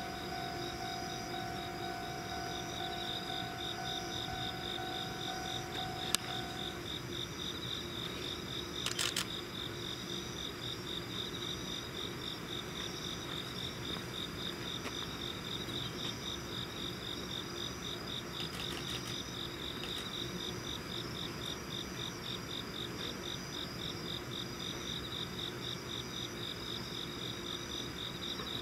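Crickets chirping in a steady, fast pulsing trill. A steady hum stops about seven seconds in, and a sharp click about six seconds in and a short rattle of clicks about nine seconds in stand out above the insects.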